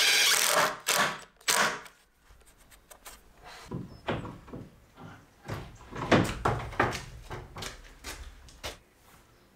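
Cordless drill driving a long wood screw through a window frame, stopping just under a second in. Then a string of separate wooden knocks and thuds as a window frame is handled and set into the wall framing.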